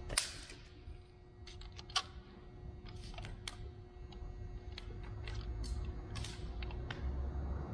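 Sharp, scattered clicks and light rattles of a tape measure's blade being pulled out and held against a steel tail spring. The loudest clicks come about a quarter second in and at two seconds. A faint steady hum runs underneath.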